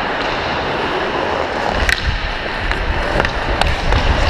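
Ice skate blades scraping and carving across the ice in a steady hiss, with a few sharp clicks of sticks or a puck. A low rumble builds from about two seconds in.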